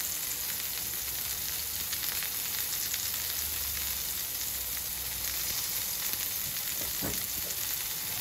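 Hot oil sizzling and crackling steadily in two pans on a gas hob: chips and fish deep-frying in one, chicken burger patties shallow-frying in the other. A soft knock about seven seconds in.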